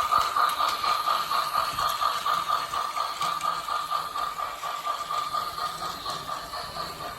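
Toy Plarail C62 steam locomotive's sound unit playing an electronic chuffing rhythm, about four beats a second, slowly fading.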